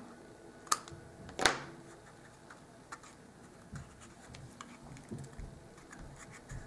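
Quiet handling of a small cardstock block and a paper strip: two sharp clicks in the first second and a half, then faint scattered ticks as fingers press the strip around the block.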